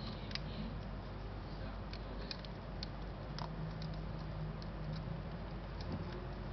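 Faint, scattered small clicks and taps of fingers handling a Yashica Electro 35 CC rangefinder camera body, over a steady low hum and hiss.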